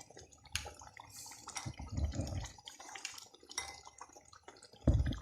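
Chicken simmering with tomatoes in its own juices in a cooking pot, bubbling and popping, with scattered small clicks. A short low thump comes near the end.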